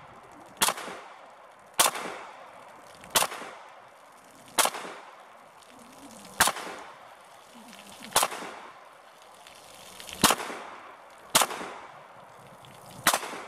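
Walther PPQ M2 9mm pistol firing nine slow, deliberate single shots, one to two seconds apart, each followed by a short fading echo.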